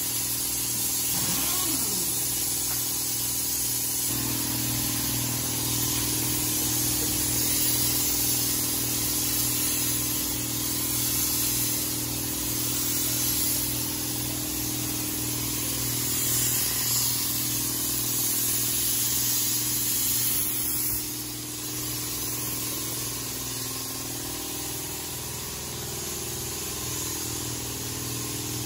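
A steady motor hum under a constant hiss, with a second, higher tone joining about four seconds in.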